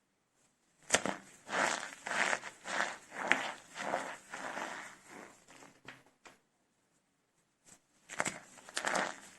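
Starch-filled soap cups being crushed and crumbled by hand, giving a run of dry crunches. The crunching starts about a second in, stops for a moment past the middle, and starts again near the end.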